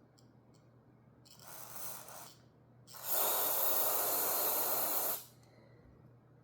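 Aerosol can of carburetor cleaner spraying into the passages of a Briggs & Stratton carburetor: a short burst, then a louder one lasting about two seconds, flushing out clogged jets.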